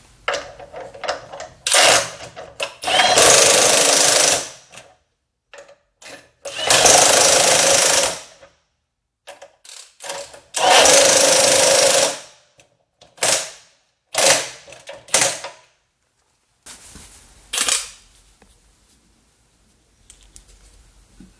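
RIDGID 18-volt brushless half-inch high impact wrench hammering in bursts: three long runs of about two seconds each, with a handful of short blips of the trigger between them.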